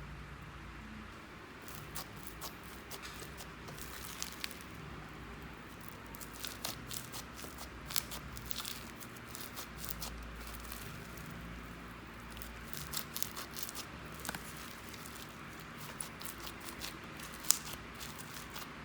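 Slime being squished and mixed by hand, making irregular sticky pops and crackles, with one sharper pop near the end.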